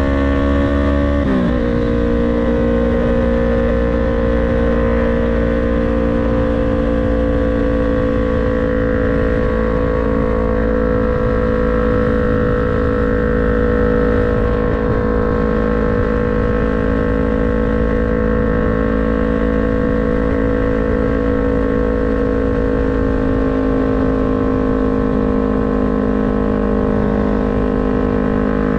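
Yamaha MT-03's parallel-twin engine and exhaust under way. The engine note drops sharply about a second in, then holds a steady cruising note whose pitch eases slowly down and lifts a little near the end.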